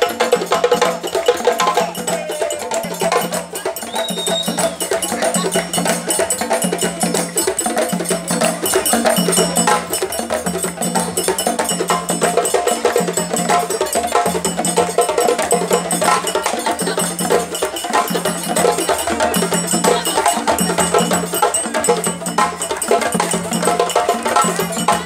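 A group of djembe-style hand drums played together in a fast, dense rhythm of sharp slaps and tones, with a low drum note recurring about once a second.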